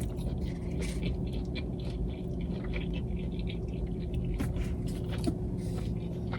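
A person chewing a pepperoni-and-cheese pizza puff close to the microphone, with scattered soft wet mouth clicks. A faint steady hum runs underneath.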